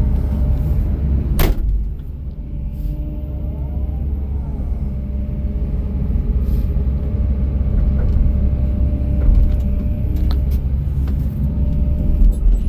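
Kobelco SK215SRLC excavator's diesel engine running steadily with a low rumble, with one sharp click about a second and a half in.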